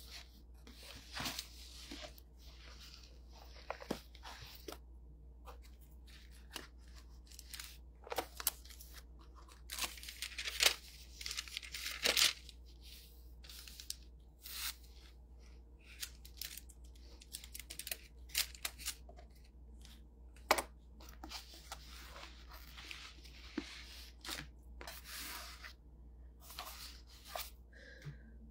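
Sheets of paper rustling and crackling in short, irregular strokes as they are handled and shuffled.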